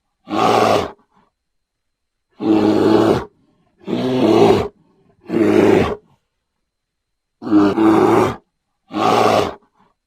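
Bear roar sound effect: six short roars, each under a second long, with silent gaps between them.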